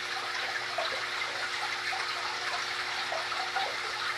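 Steady running and splashing of aquarium water from the tank's filtration, with a faint steady hum underneath.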